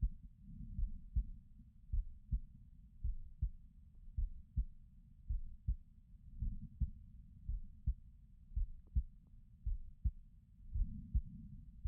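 Human heartbeat: deep, muffled lub-dub thumps, two per beat, repeating steadily about once a second.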